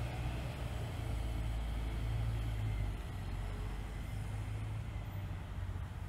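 Street traffic rumble: a city bus pulling away into the distance and a car coming up the street, heard as a steady low rumble.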